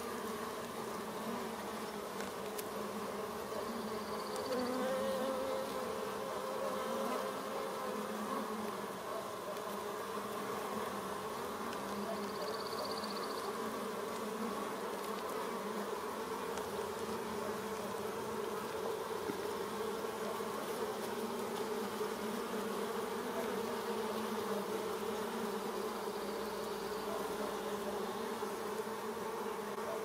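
Steady hum of a honeybee colony, many bees buzzing together on the comb.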